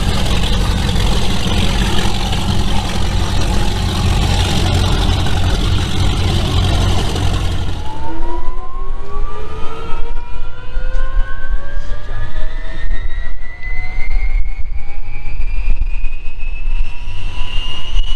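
A high-performance powerboat's engines running loud and rough, cut off abruptly about eight seconds in. Then the gas turbine engines of a 3700 hp turbine race boat starting up: a whine in several tones climbing steadily as the turbines spool up.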